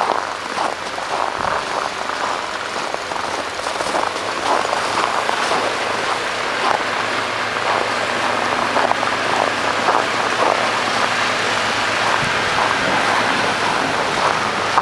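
Blizzard wind rushing over the camcorder microphone, with irregular crunching of footsteps in deep snow. A low steady hum becomes clearer in the second half.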